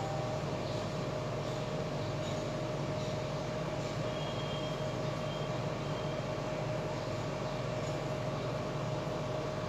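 Steady background noise with a constant low hum and a thin steady tone, unchanging throughout, with a few faint short high tones in the middle.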